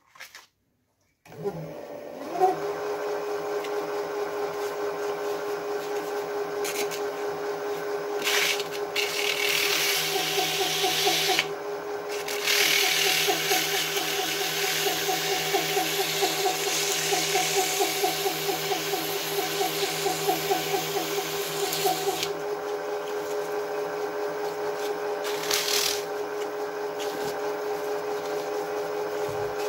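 Small metal lathe starting up about a second in and running steadily with a hum. For long stretches abrasive paper is pressed by hand against the spinning steel part in the chuck, adding a hissing rub over the motor as the surface is polished, with a short break in the middle and a brief touch again near the end.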